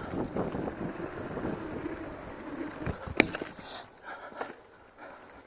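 Mountain bike rolling over a dirt singletrack with tyre rumble and rattling. About three seconds in there is a single sharp crack, which the rider takes for a branch snapping, and then the riding noise drops off.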